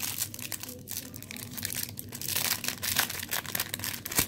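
Wax-paper wrapper of a football card pack being torn open and crinkled by hand: a dense, irregular run of crackles and rustles.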